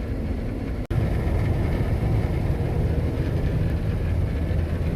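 Combine harvester running steadily while reaping barley, heard from inside the cab: a constant low engine-and-machinery drone that cuts out for an instant about a second in.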